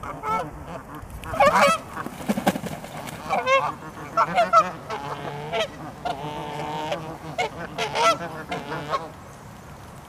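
Canada geese honking in a squabble within the flock, one goose displaying with spread wings. Short honks come one after another, with a longer drawn-out call in the middle, and the calling dies away near the end.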